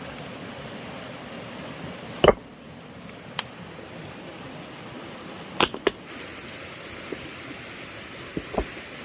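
A few sharp knocks at irregular intervals, the loudest about two seconds in and a close pair near the middle, over a steady hiss.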